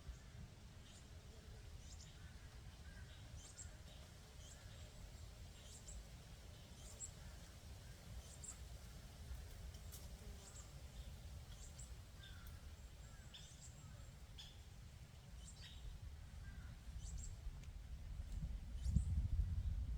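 Small birds chirping, short high calls repeated every second or so, over a low wind rumble on the microphone that grows louder near the end.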